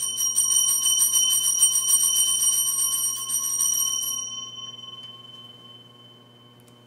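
Altar bells rung rapidly at the elevation of the consecrated host, a quick run of strikes with a bright, high ringing. About four seconds in the ringing stops and the tones fade away over the next couple of seconds.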